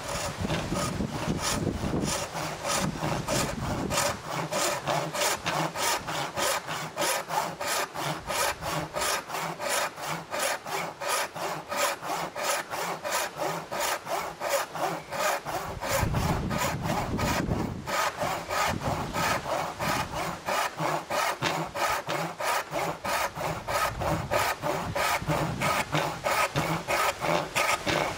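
Disston No. 5 backsaw, filed with 6 degrees of rake and 5 degrees of fleam, cutting into a block of wood by hand: steady, rhythmic rasping strokes at about three a second.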